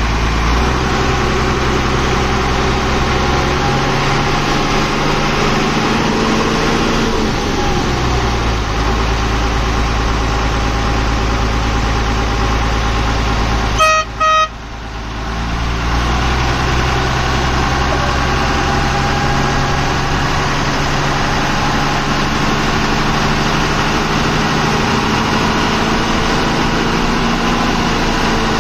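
Truck engine running with a thick, heavy exhaust note, its revs shifting a few times. Two short toots of the truck's horn sound about halfway through.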